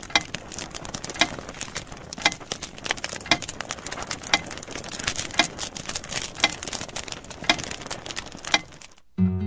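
A steady hiss with a sharp, regular tick about once a second. It cuts off just before the end, and acoustic guitar music begins.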